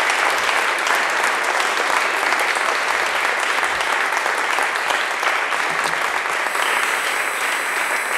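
Audience applauding steadily: many people clapping.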